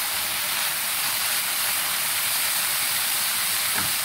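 Chopped cabbage frying in oil in a nonstick pan, a steady sizzle as it is stir-fried.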